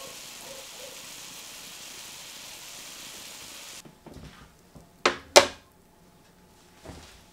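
Steady sizzling hiss from a stainless sauté pan of duck breast and vegetables on a portable gas stove, which cuts off abruptly about four seconds in. Small knocks follow, then two sharp, loud metal clacks of the pan being handled, and a softer knock near the end.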